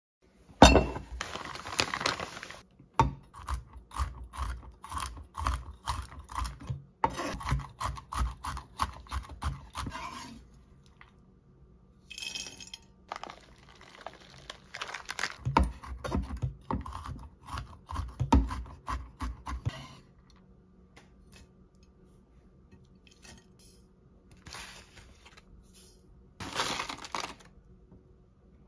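Kitchen knife chopping macadamia nuts on a bamboo cutting board: quick runs of sharp knocks, several a second, in two long spells, with quieter handling sounds between.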